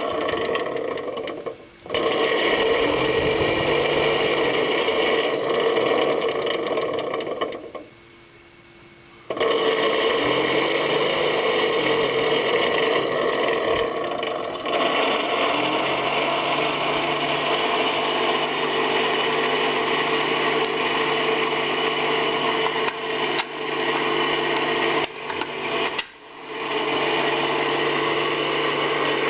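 Small battery-powered fan motor in a toy refrigerator running with a steady whir. It is switched off and back on several times, with the longest stop of about a second and a half near the eight-second mark.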